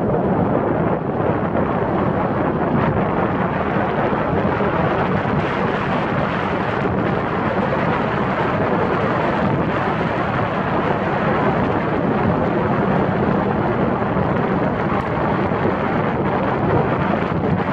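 Steady rumble of wind buffeting a microphone mounted on the roof of a moving car, mixed with the car's tyre and road noise.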